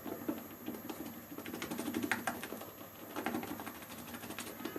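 Shaving brush working wet lather from a Williams Mug Soap puck in a shaving mug: a rapid, irregular patter of small wet clicks as the bristles churn the lather against the mug.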